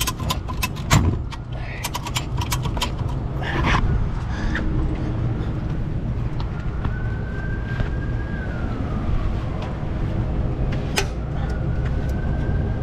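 A truck engine idling steadily, with sharp metal clicks and clanks from the tow rigging in the first few seconds and once more near the end. A faint high tone slowly rises, holds and falls away twice.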